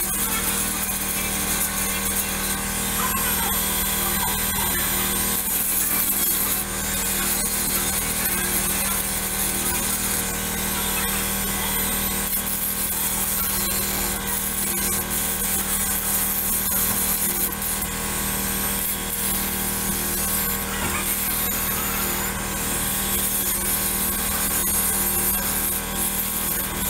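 Angle grinder running against steel without pause, a steady grinding noise.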